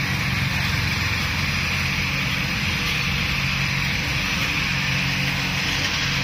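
Motorcycle engine running steadily, with an even low hum and a hiss above it.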